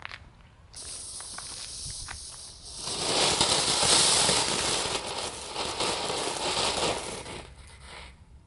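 Keller 'Vulkan' ground fountain spraying sparks: a hiss that starts suddenly about a second in, with light crackling, swells much louder at about three seconds, and dies away near the end.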